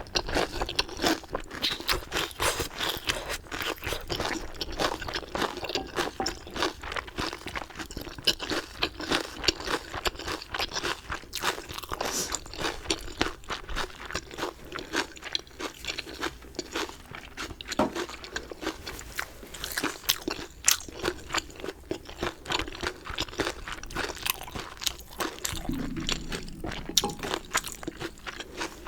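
Close-up chewing and crunching of chicken, a dense run of crisp crackles and bites.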